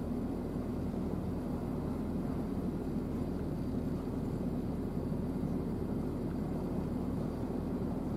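Steady low rumble of a passing coastal container ship's engine, unchanging throughout.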